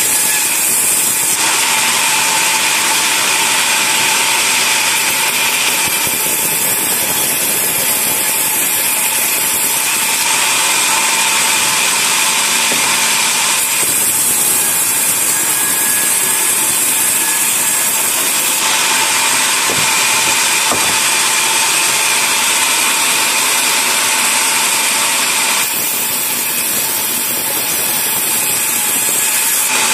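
Sawmill bandsaw running and cutting through a log: a loud, steady whine with a strong hiss that changes in character every few seconds.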